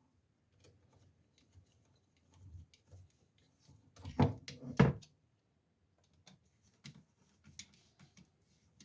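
Small clicks and taps of a steel-spiked tip attachment being handled and fitted onto the end of a walking stick, with two louder knocks a little past four and about five seconds in.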